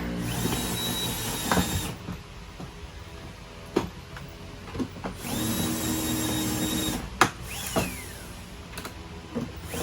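A power drill/driver run twice in bursts of about two seconds, its whine rising quickly as it spins up, with sharp clicks and knocks between the runs, as parts are screwed together.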